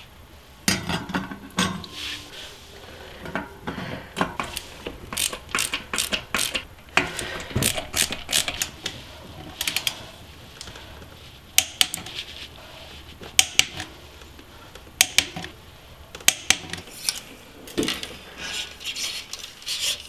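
Irregular sharp clicks, taps and clatter of metal tools and bike parts being handled during mountain bike assembly.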